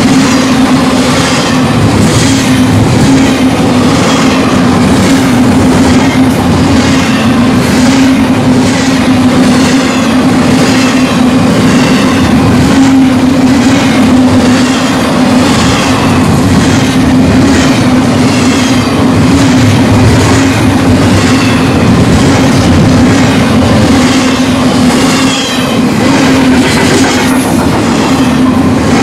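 Union Pacific intermodal freight train passing close by: a loud, continuous rumble of wheels on rail with a steady low hum and regular clicking over the rail joints.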